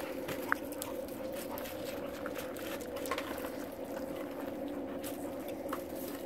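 A steady low machine hum runs throughout, with scattered light clicks and crunches from dogs' paws on gravel.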